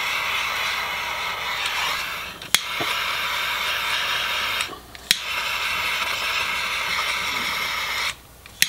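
Steady airy hiss of a heat tool shrinking heat-shrink tubing over a crimped wire connector. It cuts out three times for a moment, and each short gap ends in a sharp click as it starts again.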